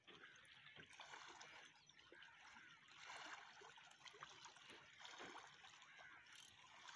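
Near silence: faint lapping and trickling of calm lake water at the rocky shoreline.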